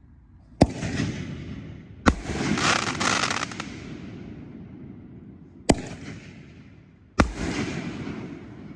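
Four sharp bangs from 4-inch 60-gram consumer canister firework shells, each trailing off into a fading crackle and hiss; after the second bang the crackling is denser and lasts over a second.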